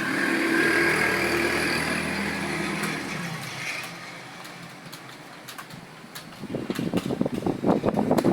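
Fast typing on a computer keyboard: irregular keystroke clicks that grow loud and dense over the last two seconds. For the first three seconds a steady motor-like drone runs underneath, then fades away.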